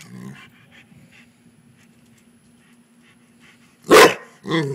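Rottweiler panting quietly, then barking loudly about four seconds in, with a second bark right after.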